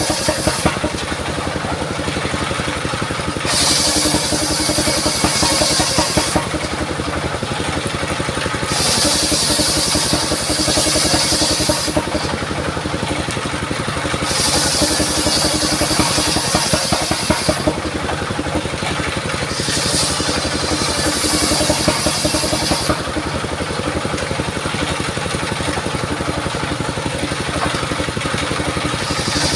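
Engine-driven circular sawmill running steadily while its blade cuts mahogany, the high-pitched cutting noise coming in repeated stretches of two to three seconds with short pauses between.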